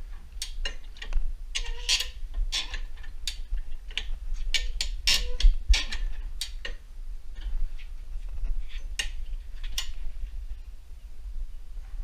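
Hi-Lift jack working, its climbing pins and lever giving irregular sharp metallic clicks and clacks, a few with a short ring, over a low rumble.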